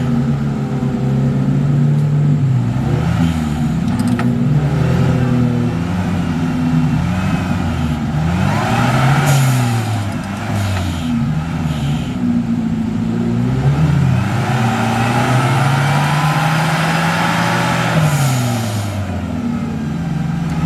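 A 4x4 off-road vehicle's engine revving up and down over and over as it works through rough terrain, the pitch climbing and dropping every second or two, with short louder hissing stretches about halfway through and near the end.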